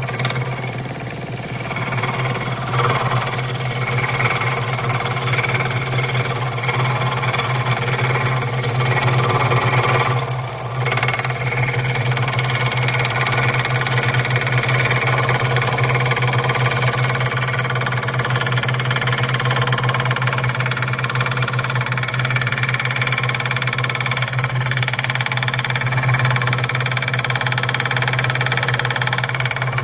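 Scroll saw running steadily, its reciprocating blade cutting through a workpiece as it is fed by hand, with a brief dip in the sound about ten seconds in.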